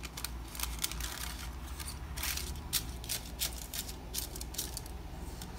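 Parchment paper crinkling and rustling as a cut circle of it is laid into a round metal cake pan and smoothed flat by hand, in a series of short crackles.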